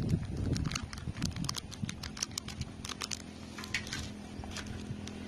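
Small scissors snipping open a thin plastic packet, with the plastic crinkling and rustling in the hands: an irregular string of sharp clicks and rustles.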